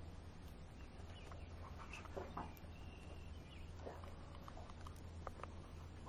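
Short, scattered bird calls and chips, faint, over a steady low hum.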